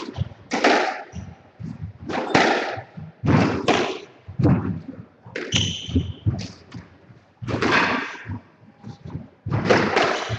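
Squash rally: the ball is struck by rackets and slapped against the court walls about once a second, each hit ringing briefly in the court, with shoes squeaking on the wooden floor a few times.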